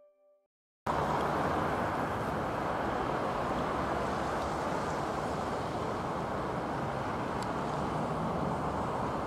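Jet engines of a Boeing 737-800 (CFM56-7B turbofans) climbing out overhead: a steady, even rumbling roar that starts abruptly about a second in.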